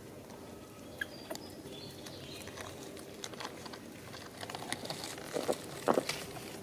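Scattered light taps and rustles of macaques moving over stone and dry leaves, with two louder short knocks near the end.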